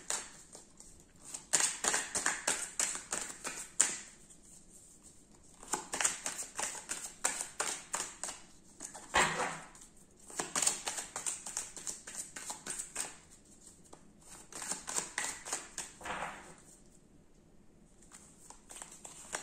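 Tarot deck being shuffled by hand: spells of quick, rapid card slaps and flicks, several times over, with short pauses between.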